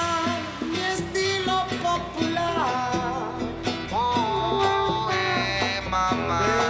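Background music: a song with singing and plucked guitar over a steady beat.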